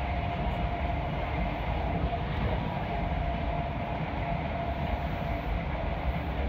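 Passenger train running at speed, heard from inside the carriage: a steady rumble and rush of wheels on track with a faint steady whine.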